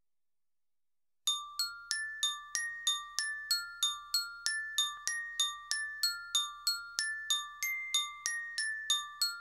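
Soundtrack music intro: a repeating melody of struck, bell-like notes, about three a second, over a faint low hum, starting about a second in.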